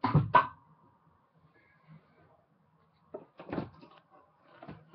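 Two loud knocks right at the start, then a quiet stretch and a cluster of softer knocks about three and a half seconds in: things being bumped and handled.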